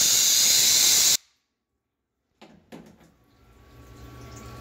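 Compressed-air blow gun hissing loudly as it blows aluminium chips off the part in the CNC mill's vise, cutting off about a second in. After a short silence, the Tormach MX1100 CNC mill comes in quietly with a steady low hum and flood coolant splashing, slowly growing louder.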